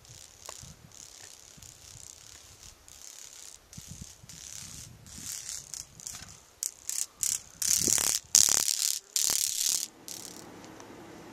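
Insects buzzing in high, rattling bursts that come and go, growing louder and longer over the last few seconds before cutting off about ten seconds in.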